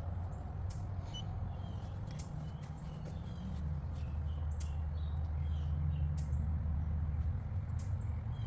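Steady low hum of a running central air conditioner, a little louder from about four seconds in, with scattered short bird chirps over it.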